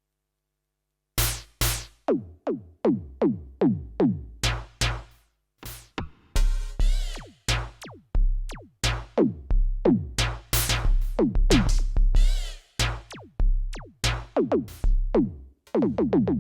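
Yamaha DTX720K electronic drum kit played on an electronic, synth-style kit voice: a run of synth tom hits, each sweeping quickly down in pitch, with a deep kick drum joining about halfway. It starts after about a second of silence.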